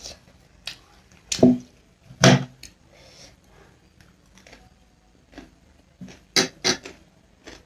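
Close-miked eating sounds: a handful of short, separate mouth noises from chewing and slurping noodles, with a couple of brief voiced sounds early on.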